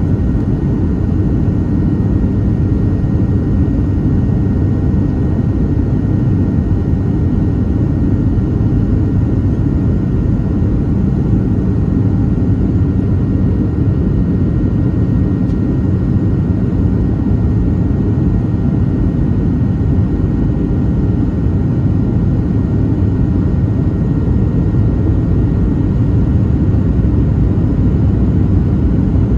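Steady low rumble inside the cabin of a Boeing 737-700 on approach, heard from a window seat by the wing: engine and airflow noise with a few faint steady high tones.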